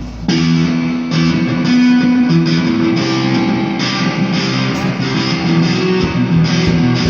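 Band jamming an instrumental passage: guitars playing chords over a bass line, coming in sharply about a third of a second in.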